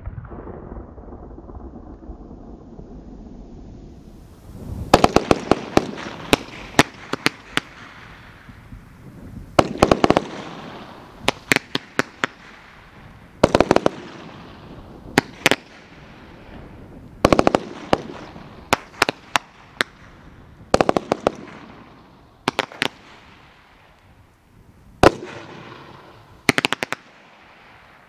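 Red Rhino Fireworks 'Firehorse' firework cake firing a run of shots: every couple of seconds a group of sharp bangs in quick succession, with a hiss between the groups. The groups come less often near the end.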